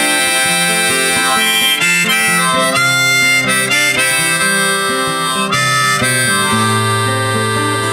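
Background music: an instrumental passage of a song, led by harmonica over guitar.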